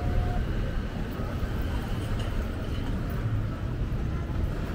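Outdoor street ambience: a steady low rumble with faint distant voices mixed in.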